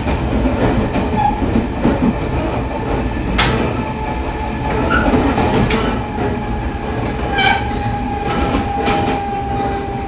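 Running noise of a Tze-Chiang push-pull train behind an E500 electric locomotive as it brakes down from about 60 km/h, with scattered clicks from the rails; the wheels are out of round (wheel flats). A steady high whine joins about seven seconds in and fades two seconds later.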